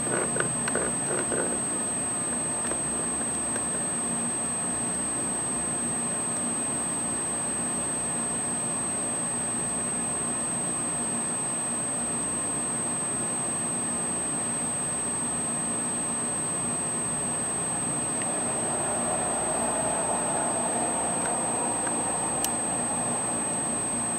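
Steady background hiss with a constant high-pitched whine. A faint drone swells and fades between about 18 and 22 seconds in, and there is a single click about 22 seconds in.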